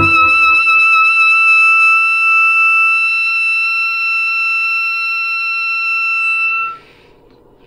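Soprano saxophone holding one long high note with a slight vibrato, the last note of the tune, ending sharply about a second before the end.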